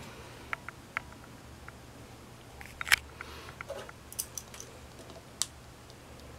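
Handling noise: scattered light clicks and taps, the loudest knock about three seconds in, over a faint steady low hum.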